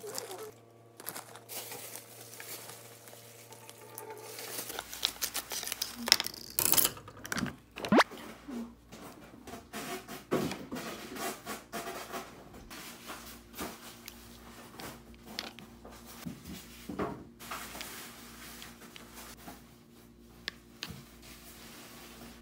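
Hands preparing food: packaging rustling and tearing, squishing and scraping, and irregular light clicks of utensils and containers.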